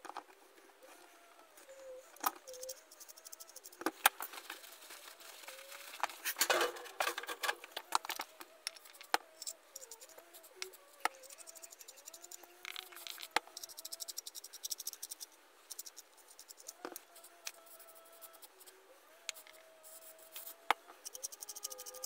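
Small metal clicks, taps and scrapes from the gears and housing of an old hand drill being handled and fitted back together, busiest about six to seven seconds in, with a faint wavering tone underneath.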